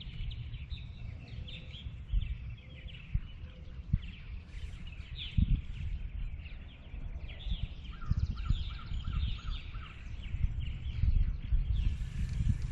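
Small birds chirping and singing over a low, gusty rumble of wind on the microphone. About eight seconds in, one bird repeats a short note about six times in quick succession.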